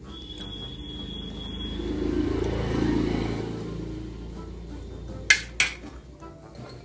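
A motor vehicle passing by: its engine rumble swells to a peak about three seconds in, then fades. Two sharp clicks follow a little after five seconds in.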